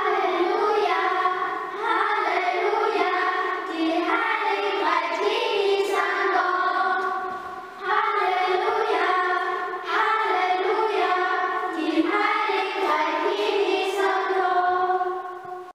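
Several children singing a star singers' Epiphany song together, a melody in phrases with brief breaks between them.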